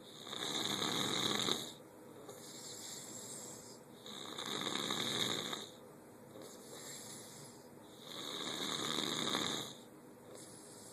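Snoring in slow, even cycles: three loud snores about four seconds apart, each lasting under two seconds, with quieter breathing between them.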